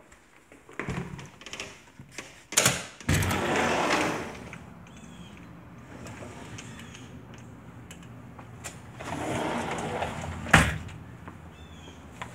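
A sliding glass patio door rolling along its track twice, each run about a second long: once with a sharp knock about two and a half seconds in, and again near the end, finishing with a sharp bang as it meets the frame.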